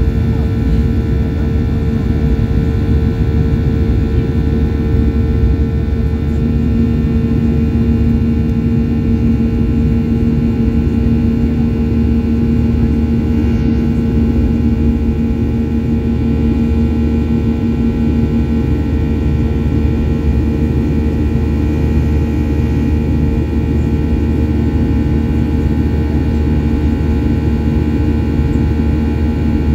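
Jet engine drone and airflow noise heard inside the cabin of a Ryanair Boeing 737 in flight: a steady low rumble with a constant hum. A slightly higher tone stands out for about twelve seconds in the middle.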